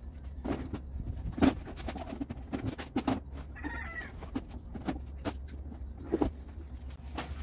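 An e-bike and its cardboard shipping box and packing being handled as the bike is worked out of the box: irregular knocks, clacks and scrapes, with a short higher-pitched squeak about halfway through.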